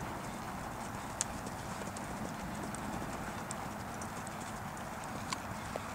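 Hoofbeats of a Missouri Fox Trotter gelding moving under saddle on arena dirt, with a couple of sharp clicks.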